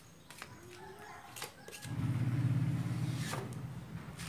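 Faint clicks and scrapes of hand spreaders as body filler is worked on them. About two seconds in, a loud low droning hum sets in and slowly fades.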